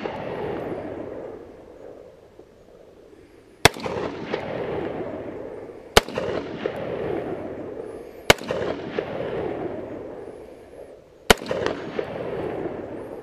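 Sig Sauer 516 Patrol gas-piston AR-15 rifle firing steel-case Tula .223 55-grain ammunition: four single aimed shots, two to three seconds apart. Each crack is followed by a long rolling echo.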